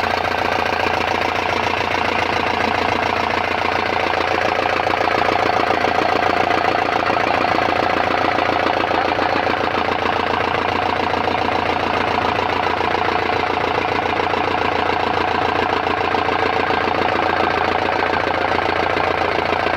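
Freshly rebuilt Tata Sumo Gold diesel engine idling steadily, its first running after the rebuild.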